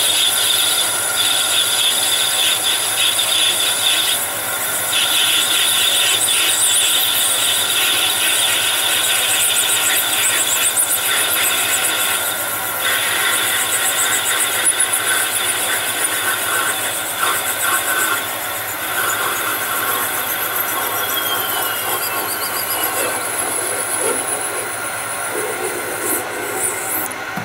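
Metal lathe parting off a spinning brass bar with a 2 mm carbide parting insert: a steady high-pitched cutting whine over the spindle noise. It dips briefly about four seconds in and eases about thirteen seconds in, with a few falling tones later. The cut runs smoothly, with no trouble.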